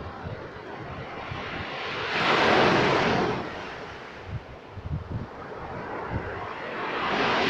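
Sea waves breaking on the shore, two swells of surf about five seconds apart, with wind buffeting the microphone.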